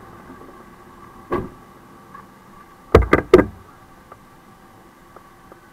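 Three loud, sharp thumps in quick succession about three seconds in, after a lighter single knock, inside the cab of a moving fire truck over its steady hum.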